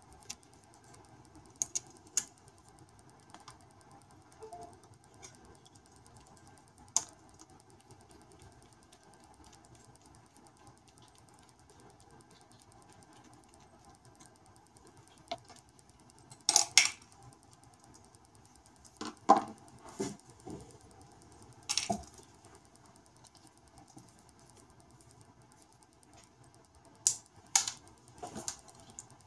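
Scattered small clicks and taps of a screwdriver and small probe parts being handled while the stator of a solid-state CPMAS NMR probe is unscrewed and its ring and tubes are lifted off. About a dozen sharp clicks come at irregular intervals, the loudest a little past the middle, over faint steady room noise.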